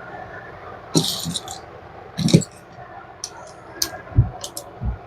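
Scattered clinks and knocks of small metal hardware and tools being handled: stainless steel screws and fittings picked up and set down, about seven sharp strokes at uneven intervals, the loudest a little past two seconds in.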